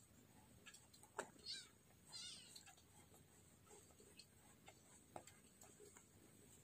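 Cat meowing twice in short, high-pitched calls, about a second and a half and two seconds in, with a few faint clicks.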